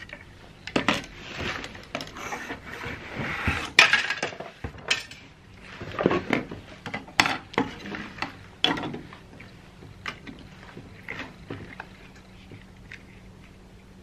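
Salvaged circuit boards and small metal parts clattering and clinking as they are slid, stacked and picked up on a wooden workbench: a busy run of sharp knocks and clinks that thins out to a few light taps near the end.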